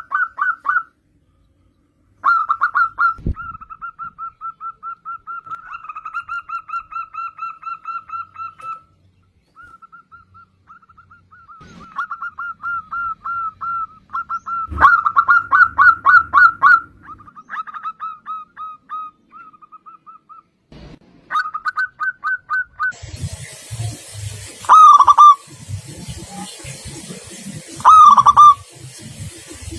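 Zebra dove (perkutut) cooing in quick trilled runs of short notes, with brief pauses between phrases. Near the end the sound changes to a few separate, louder calls over a steady hiss.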